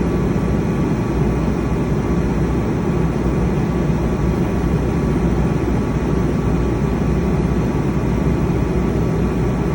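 Diesel engine of a 100 kW Multiquip generator running steadily during a forced exhaust-filter regeneration, a constant low rumble with a hum under it. The forced purge is needed because the generator is regularly run under light load.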